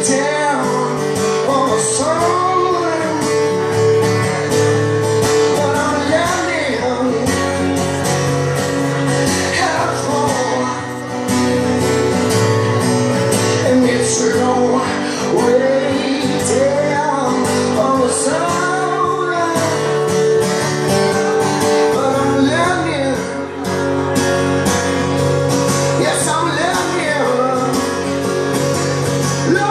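A man singing live while strumming an acoustic guitar: a solo voice-and-guitar song.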